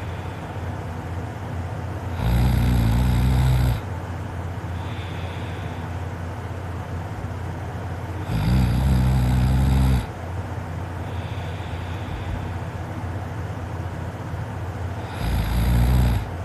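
A person snoring in sleep: three loud, drawn-out snores about six seconds apart, each lasting over a second, with quieter breaths between them over a steady background hiss.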